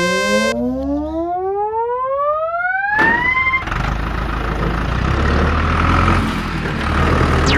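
A pitched tone glides steadily upward for about three seconds, then cuts off abruptly. A steady low engine-like rumble with hiss follows, and a short falling whistle comes near the end.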